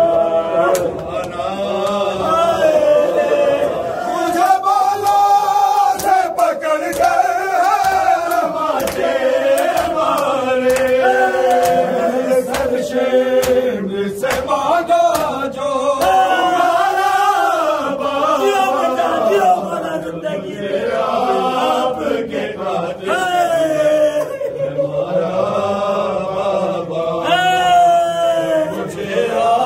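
A group of men chanting an Urdu noha, a Shia mourning lament, in unison, their voices rising and falling in a slow repeated melody, with scattered sharp hits among the voices.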